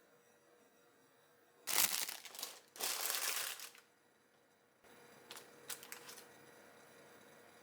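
A crinkly thin sheet being crumpled and handled: two loud bouts of crinkling about two and three seconds in, then a few lighter crackles.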